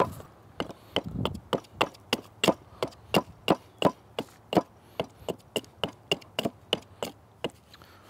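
Carving hatchet taking quick, light chopping strokes into a wooden block resting on a chopping stump, shaping it square, about three sharp strikes a second, stopping near the end.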